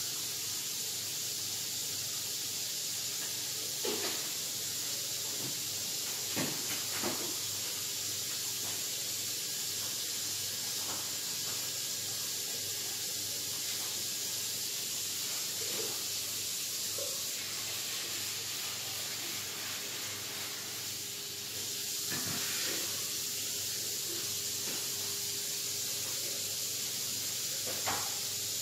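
A steady high hiss of background noise, with a few faint short knocks now and then.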